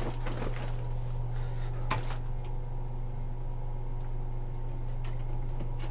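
Steady low hum with one sharp knock about two seconds in and a few faint taps later, the knocks typical of handling things in a kitchen cupboard.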